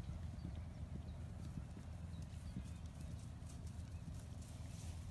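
Horse hoofbeats on turf, a run of soft irregular thuds, over a steady low rumble.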